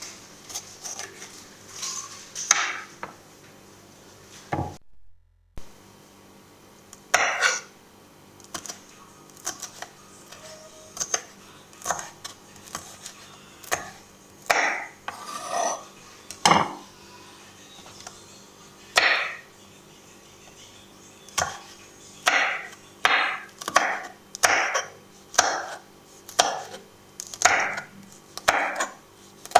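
Knife chopping on a wooden cutting board: scattered knocks at first, then a steady run of chops a little over one a second in the second half.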